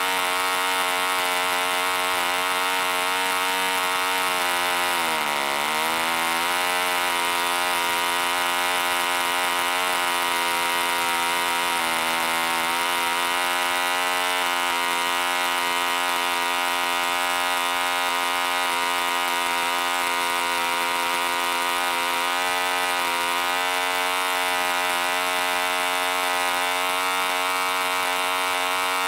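1945 Rocket Victor .45 two-stroke spark-ignition model engine running steadily at about 5,000 to 5,500 rpm on a 13x6 wooden propeller. About five seconds in its revs dip briefly and then recover.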